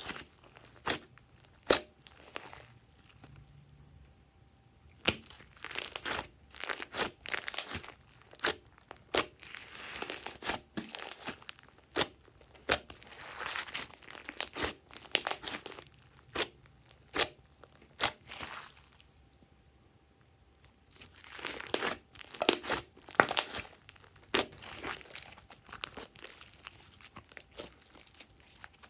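Hands kneading and stretching soft glossy slime, making runs of sharp sticky clicks, crackles and pops, with two short pauses between handfuls.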